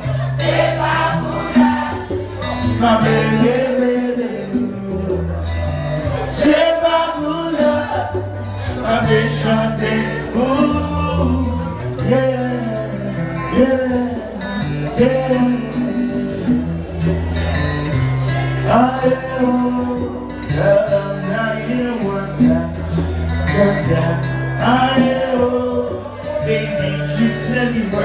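Man singing live into a microphone, accompanied by acoustic guitar, over sustained bass notes that change every second or two.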